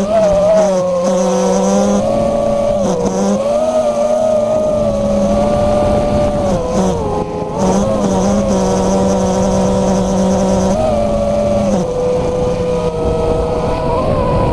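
FPV quadcopter's brushless motors whining, the pitch wandering up and down with the throttle, over a steady lower hum that drops out a few times.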